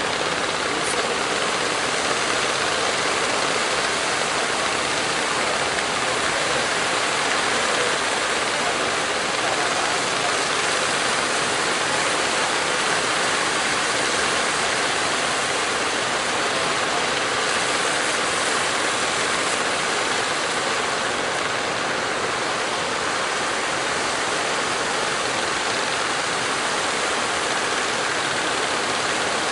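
Steady rushing noise of choppy surf and breaking waves, with the engines of wooden fishing boats running under it.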